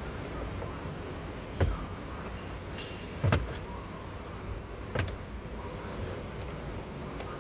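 Three sharp clicks or knocks, about a second and a half apart, the middle one preceded by a short rustle, over a steady background hum, as the plastic trim around the steering wheel is worked loose by hand.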